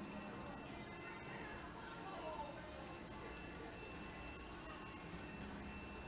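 Electronic ringing chime of a Polar slot machine as its reels spin, coming in repeated stretches of about a second, over a steady low casino din.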